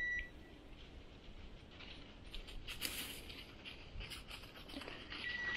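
Dry fallen leaves rustling and crunching underfoot in short, irregular bursts. A short, high, steady beep sounds right at the start and again near the end.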